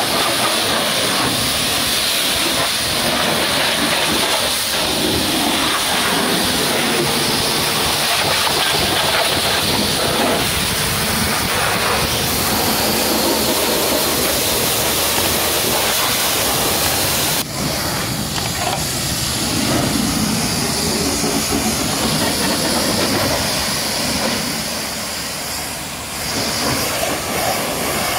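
High-pressure washer jet hissing steadily as it blasts water against an old Mercedes-Benz tipper truck's tyres, rear axle and chassis, with a sudden break about two-thirds of the way through.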